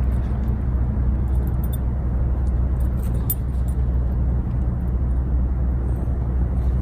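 A steady, low engine hum with a few faint metallic jingles over it.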